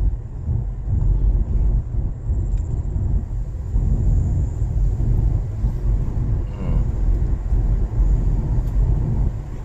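A car driving along: a steady low rumble of road and wind noise.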